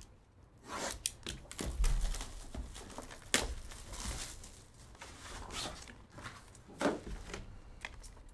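Plastic shrink wrap being torn and crinkled off a sealed trading-card hobby box, in short scattered rips, with a low knock of the cardboard box being handled about two seconds in.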